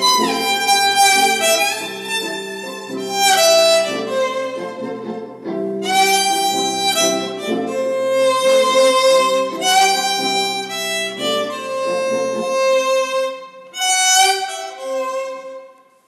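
Solo violin playing a slow melody of long bowed notes over held lower notes; the low notes stop about three quarters of the way through and the violin fades out at the end.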